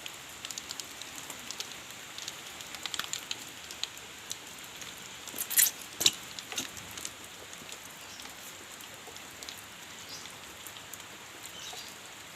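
Rain falling steadily, with many scattered drops ticking close by and two louder sharp hits near the middle.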